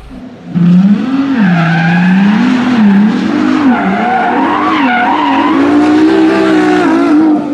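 Race-car sound effect: an engine revving up and down over several seconds with tyre squeal, starting suddenly about half a second in.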